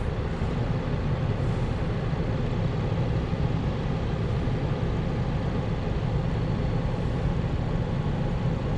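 Vehicle engine idling steadily, a low even hum with no change in pitch.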